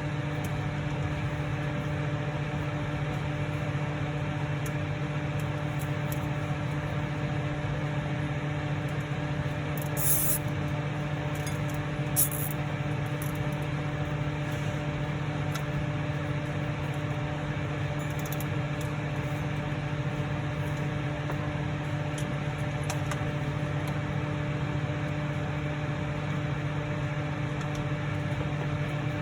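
Steady machine hum with a low pitched drone from a running motor or fan. Two brief high clinks come about ten and twelve seconds in.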